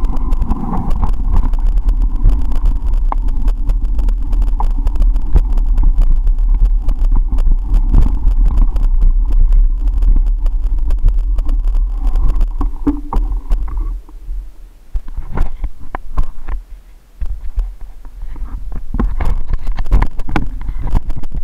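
Mountain bike riding a dirt trail: loud low rumble of motion and wind on a jolting microphone, with knocks and rattles. About two-thirds of the way through the rumble drops off for a few seconds, leaving separate knocks, and then comes back.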